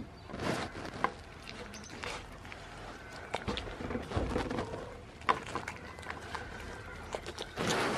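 A goat nosing and nibbling at treats close to the microphone: scattered small clicks, taps and rustles, with a louder rush of noise near the end.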